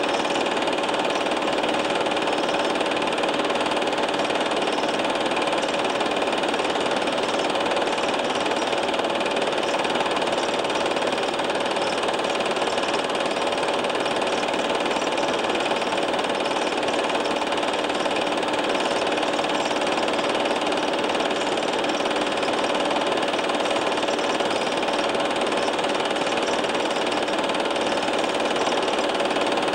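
Film projector running, a steady mechanical noise with a faint hum and no change throughout.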